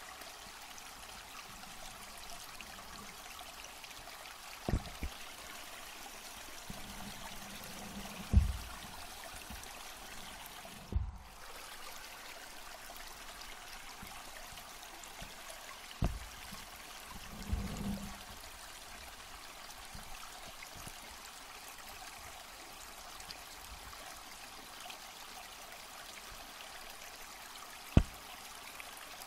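Underwater water noise picked up by a submerged camera: a steady hiss, broken by a handful of short, dull low knocks, one about a second before the end among the loudest.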